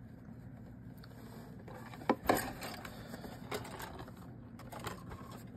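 Hands handling and turning over a small cardboard model-kit box: light rustling and scraping of the card, with a couple of sharp taps about two seconds in.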